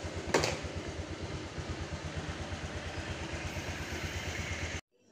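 Automatic scooter's engine idling steadily while it warms up in the cool early morning. The sound cuts off suddenly near the end.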